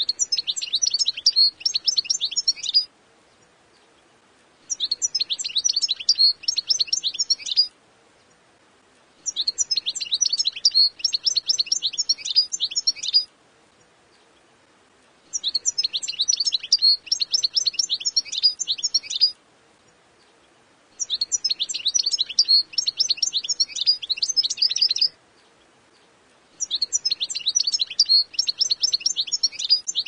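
European goldfinch song: six phrases of rapid, high twittering, each about three to four seconds long, with pauses of about two seconds between them.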